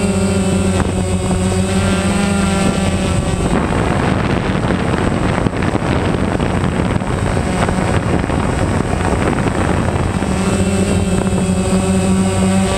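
Quadrotor drone's propellers buzzing up close, a steady pitched hum. From about three and a half seconds in the pitch breaks up into a rougher, unsteady whir, and it settles back to a steady hum near the end.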